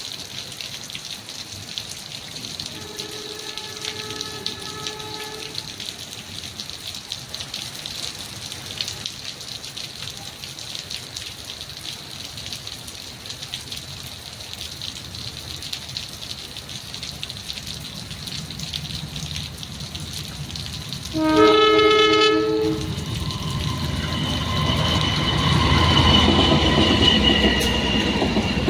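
Heavy rain hissing steadily while a train horn sounds faintly about three seconds in, then loudly once about 21 seconds in. After the loud blast the train's rumble grows as it approaches, with a high steady whine over it.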